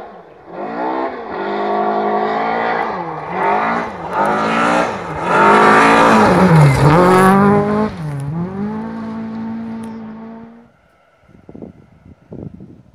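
Rally car accelerating hard along a gravel stage, its engine revving up and dropping back through several gear changes as it comes past. It is loudest about six to seven seconds in, then holds a steady note and fades away near the end.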